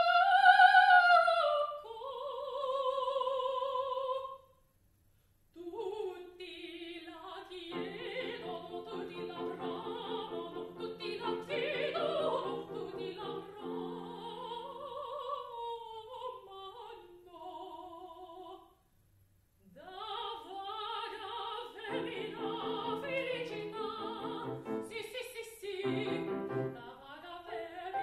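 Mezzo-soprano singing an operatic aria with vibrato, accompanied by grand piano, with two brief pauses, about five seconds in and about two-thirds of the way through.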